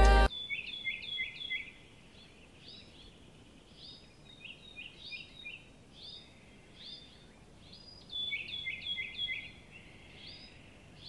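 Small birds chirping in quick runs of short, high, falling notes that repeat in clusters with short gaps. Background music cuts off abruptly right at the start.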